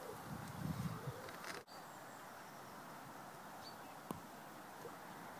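Quiet outdoor ambience with a steady low hiss and a few soft rustles in the first second. A short high bird chirp comes a little after three and a half seconds, and a single click about four seconds in.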